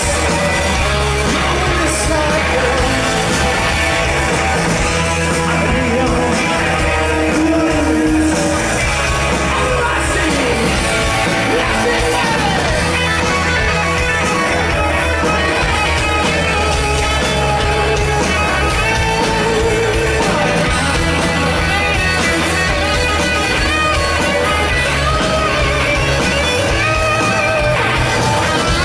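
Rock band playing live through a big outdoor PA, with electric guitar and singing, heard from within the crowd.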